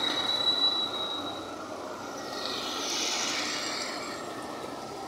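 Street traffic: cars and motorcycles driving past. A high steady whine fades out in the first second or so, and a passing vehicle swells and fades about three seconds in.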